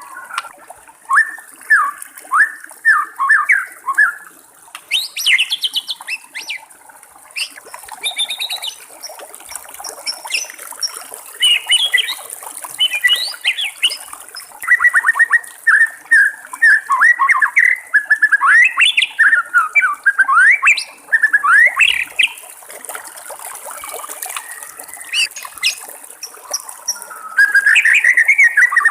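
White-rumped shama singing long, varied phrases of quick repeated notes and sweeping whistles, with a denser run of song near the end, over a steady background of trickling water.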